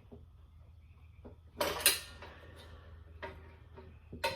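Metal clanks and scrapes of a tire-changer lever being worked to hook the bottom bead of a motorcycle tire off the wheel: a loud double clank about one and a half seconds in, then a few lighter knocks near the end.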